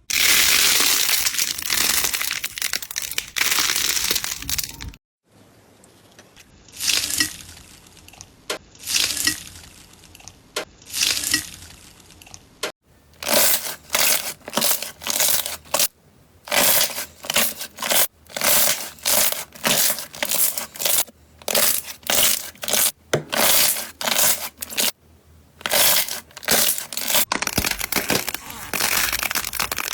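Slime being handled by hand, making crackly, crinkling sounds. A continuous stretch of about five seconds breaks off suddenly. After it come separate squeezes, which grow into a quick run of strokes, about one and a half a second.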